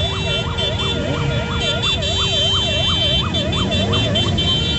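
A siren yelping, its pitch sweeping up and down about three times a second, over the low running of many motorcycle engines. The siren stops shortly before the end.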